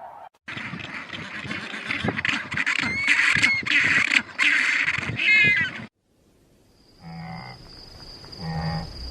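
Farm animal calls in two separate clips. The first is a dense stretch of noisy calls with a few high, gliding squeals; it cuts off suddenly about six seconds in. After a moment of silence, a run of short pitched calls begins.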